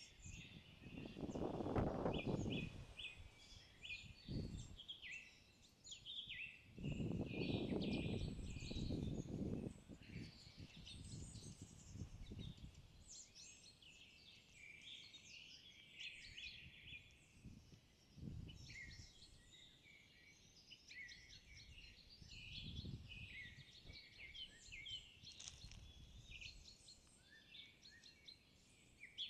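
Several songbirds singing and calling continuously in forest, a dense mix of chirps and trills. Several low muffled rumbles come and go underneath, the longest about a third of the way in.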